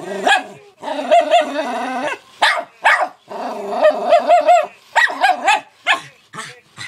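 Dog barking repeatedly in short sharp barks, with two longer wavering, warbling sounds in between, one about a second in and one around three to four seconds in.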